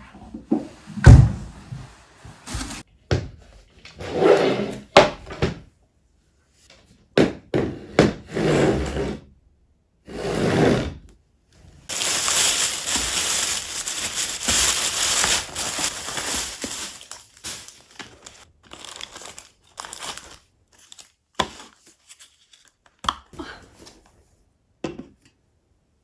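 Takeout food packaging being handled and opened: plastic crinkling and tearing, with knocks as containers are set down. The loudest is a sharp thunk about a second in, and there are several seconds of continuous rustling about halfway through.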